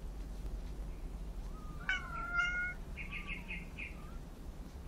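Kitten mewing once, a high call lasting under a second, about two seconds in. A quick run of about five short, high chirps follows a second later.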